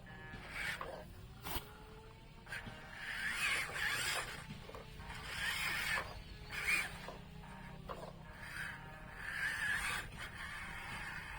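Small electric motors and plastic gears of a Huina remote-control toy excavator whining in short bursts every second or two, with rubbing and scraping sounds between them.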